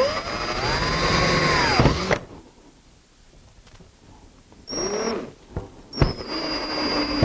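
Cordless drill-driver driving screws into a cabinet case. The motor whines up in pitch and runs for about two seconds, then comes back in two shorter bursts about five and six seconds in.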